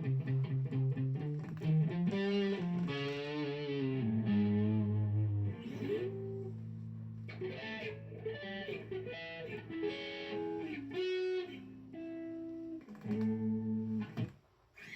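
Electric guitar playing a rock lead: low single-note riffing, then string bends with wide vibrato and held notes, breaking off briefly near the end.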